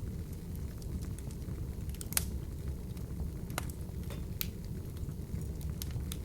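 Open wood fire burning in a fireplace: a steady low rumble of flames with scattered sharp crackles and pops, the loudest about two seconds in.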